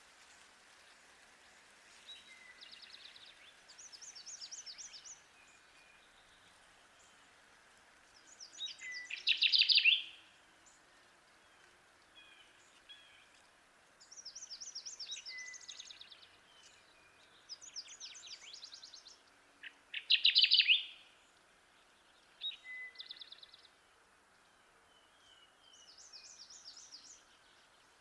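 Kirtland's warbler singing its loud, low-pitched, emphatic chip-chip-too-weet song twice, about nine and twenty seconds in. Fainter, higher trilled songs come in between.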